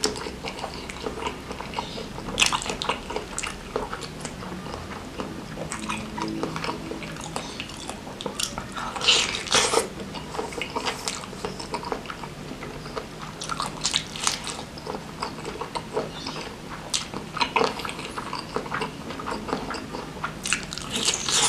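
Close-miked chewing and wet mouth smacks of a person eating bakso meatballs and fatty beef tetelan in chili sauce: irregular soft clicks and smacks throughout, louder in short clusters.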